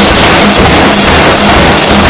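C41-series pneumatic (air) forging hammer running continuously, its ram hammering red-hot steel in a steady, rapid, very loud rhythm.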